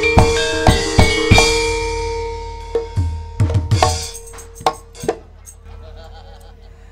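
Gamelan ensemble playing: sharp hand-drum strokes over ringing struck-metal tones. A long note rings and fades about a second in, a few last drum strokes come near the five-second mark, and then the music dies down.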